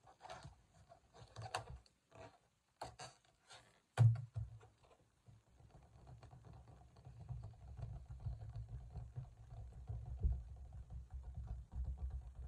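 Inflated latex balloon being handled: short rubbery squeaks and rustles as its neck is knotted, a thump about four seconds in, then a low rubbing, patting rumble as the balloon is pressed and rubbed right against the microphone.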